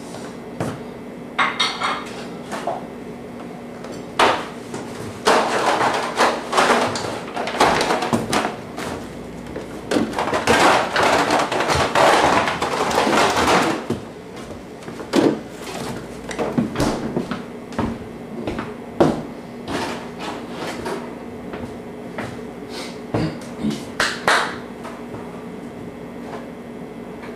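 Irregular clattering and knocking of household objects being handled, thickest in the middle stretch and sparser near the end, over a steady low hum.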